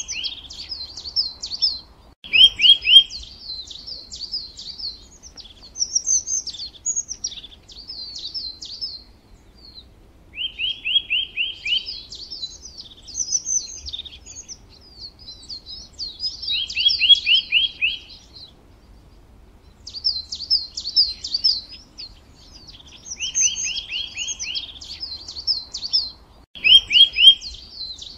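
Songbirds singing: high chirping and twittering phrases, broken by a short, fast trill of four or five falling notes that comes back every few seconds.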